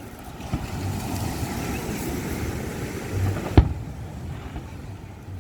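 A single sharp firework bang about three and a half seconds in, over a steady rushing background noise.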